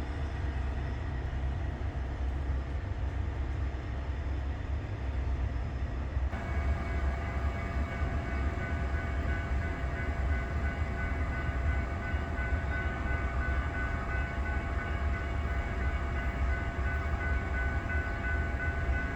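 BNSF double-stack freight train running by with a steady low rumble. About six seconds in, several steady high-pitched tones join in and hold.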